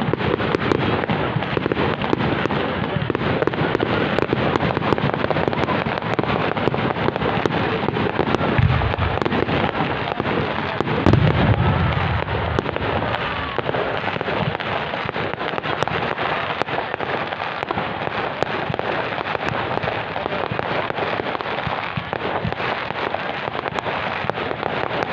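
Fireworks display: a dense, continuous crackling of many small pops, with two deeper booms about nine and eleven seconds in.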